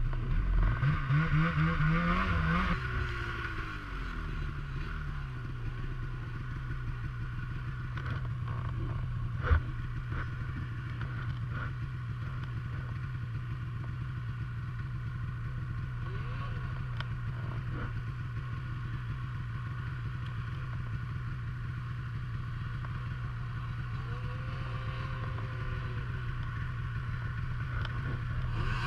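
Snowmobile engine revving with rising and falling pitch for the first few seconds, then idling steadily. There is a single sharp click about ten seconds in, and other snowmobiles rev faintly in the distance now and then.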